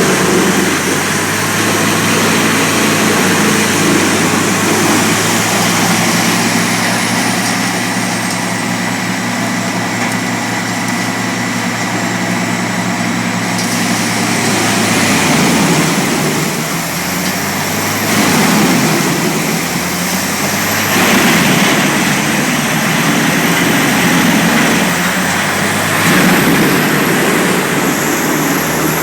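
CBI Chipmax industrial wood chipper running, its engine humming steadily under a high whine that dips in pitch for several seconds midway and then climbs back. In the second half, louder rushing noise surges in several times, a few seconds apart.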